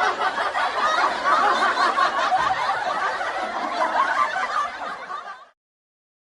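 Crowd laughing sound effect: many people laughing and chuckling together. The laughter tapers off and cuts to silence about five and a half seconds in.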